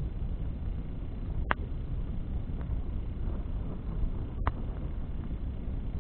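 Bonfire crackling, with two sharp pops about three seconds apart and a few faint snaps over a steady low rumble.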